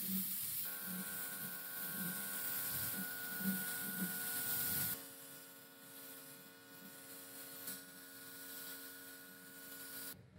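Spray paint hissing from a nozzle as it is sprayed onto a motorcycle fuel tank, steady and loud for about five seconds, then fainter. A steady hum with several tones sounds beneath it from about a second in.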